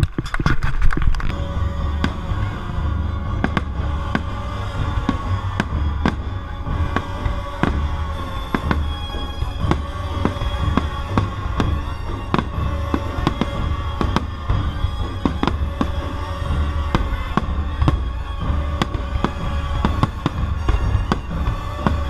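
Fireworks going off in rapid, irregular bangs and crackles, with a loud cluster of bursts at the start, over sustained orchestral music.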